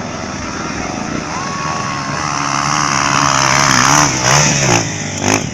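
Dirt bike engine revving up: the pitch and loudness climb for a few seconds, then drop off sharply as the throttle is closed, followed by one brief blip near the end.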